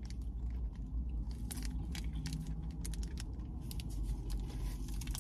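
Small crinkles and clicks of a plastic dressing packet being squeezed as ranch dressing is poured out, over a low steady rumble.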